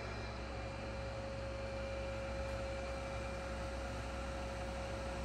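TOS-Kuřim FNK 25A milling machine's table feed drive running at its minimum feed rate of 14 mm per minute: a steady electric hum with one constant tone above it.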